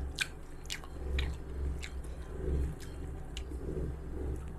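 A person chewing a mouthful of rice and boiled genjer greens close to the microphone, with soft rhythmic chewing and several short wet mouth clicks.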